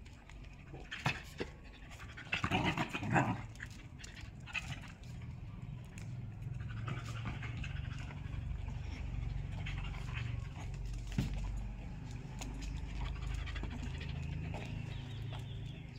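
A dog scuffling with a baby monkey: a cluster of loud, short, harsh dog noises about two to three seconds in, then steady breathy dog panting.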